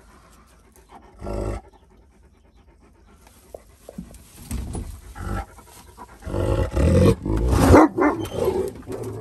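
Akbash/Great Pyrenees dog panting with its mouth open, in short noisy breaths that grow louder in the second half.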